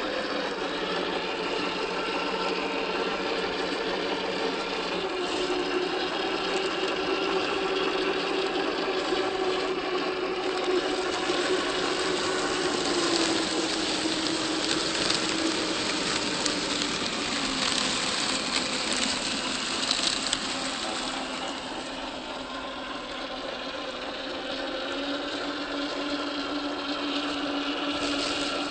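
Electric motor and gear whine of a 1/10-scale RC crawler on a Boom Racing BRX01 chassis, driving with its pitch shifting with the throttle: it drops gradually over the first two-thirds and rises again near the end. A louder, noisier stretch sits in the middle.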